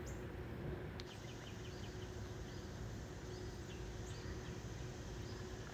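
Faint outdoor garden ambience: a low steady hum with a few faint, short, high bird chirps.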